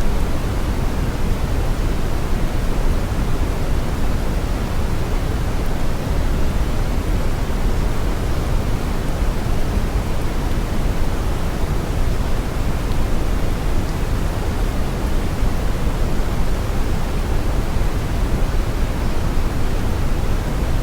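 Steady brown noise: an even, deep rushing hiss with most of its weight in the low end and little treble, unchanging in level.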